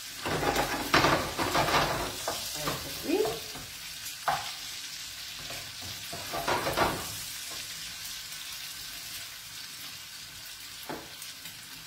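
Diced guanciale sizzling in a frying pan as its fat renders, with a wooden spatula stirring and scraping it in short spells: about a second in, around four seconds, and again around six to seven seconds.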